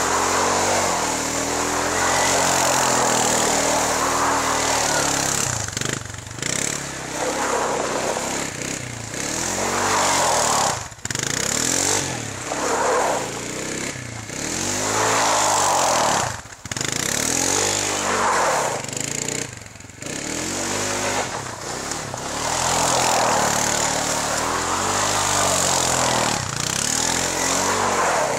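Kymco Maxxer 300 quad's single-cylinder four-stroke engine revving up and down over and over as the quad circles and slides in controlled skids. The pitch rises and falls with each pass and throttle burst, with brief dips where the throttle is let off.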